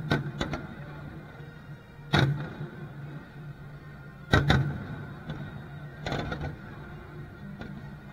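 Aerial firework shells bursting: four main booms about two seconds apart, the loudest about four seconds in, with smaller reports between, over a steady low hum.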